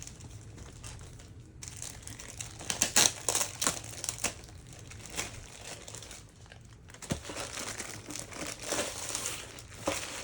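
Packaging being opened and handled, crinkling in irregular bursts, loudest about three seconds in.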